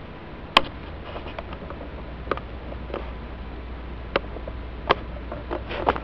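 Vintage GE F17W12 steel box fan running with a steady low motor hum and even air noise, broken by half a dozen sharp clicks and taps, several more crowded together near the end.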